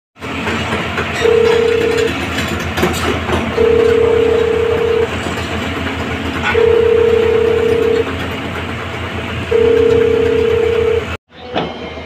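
Hyundai crawler excavator travelling on its tracks: diesel engine running with track clatter, under a repeating two-tone travel alarm, a long high beep then a shorter lower one, about every three seconds. The sound cuts off suddenly near the end.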